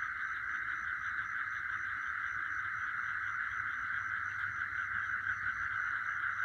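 Chorus of night insects: a dense, steady trill, with a higher, thinner chirp pulsing evenly about twice a second over it.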